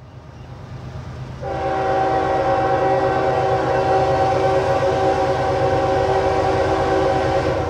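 Air horn of a Union Pacific GE ES44AC diesel locomotive sounding one long steady blast. It starts about a second and a half in and holds until near the end, over a rising low rumble of the approaching train.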